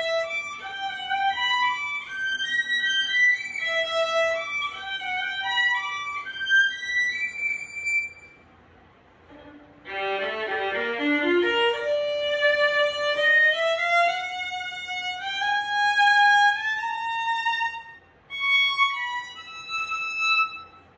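Solo violin, bowed, playing a melodic passage of practice repertoire. About eight seconds in it stops for a moment. It comes back with a run of quick low notes and then a slowly climbing line, with another short break near the end.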